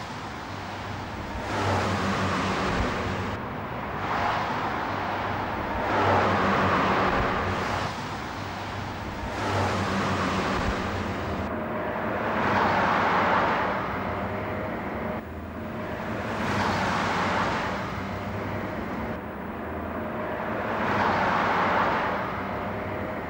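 Road traffic: cars passing one after another, each a swelling and fading rush of tyre and engine noise, over a steady low engine hum.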